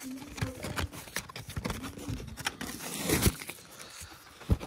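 Clear plastic blister pack crinkling and clicking, with its card backing tearing, as a die-cast toy car is pried out of its packaging. A louder crackle comes a little after three seconds and a sharp knock near the end.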